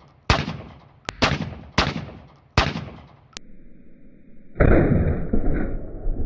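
Semi-automatic Beretta A400 shotgun firing four quick shots, a little under a second apart, each with a short echoing tail. About halfway through, a different loud, sustained rushing sound sets in.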